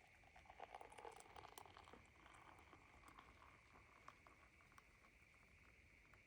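Near silence in a small enclosed space, with faint small clicks and rustles over the first two seconds that then thin out to a few scattered ticks.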